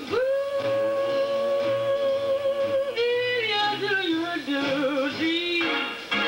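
Music with a singing voice: one long note held for nearly three seconds, then a slide down through shorter wavering notes and another held note.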